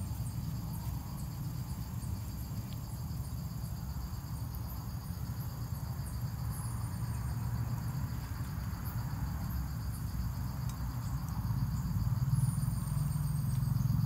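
Steady high-pitched insect chirring, with a thin high falling note twice and a low rumble underneath that grows louder near the end.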